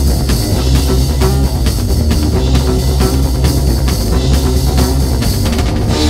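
Loud rock band recording played back, with drum kit and guitar driving hard. The recording was made with the studio equipment pushed into the red to match the band's energy.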